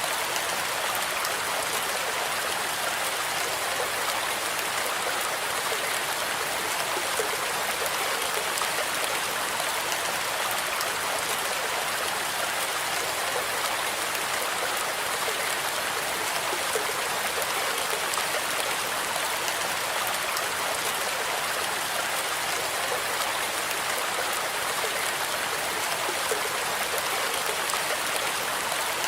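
Steady rain mixed with white noise: an even, unbroken hiss, light in the bass, with scattered faint drop ticks.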